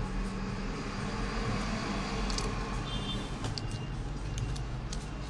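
Steady background rumble and hum, with a few light clicks in the second half as a tablet's circuit board is handled and pressed into its plastic frame.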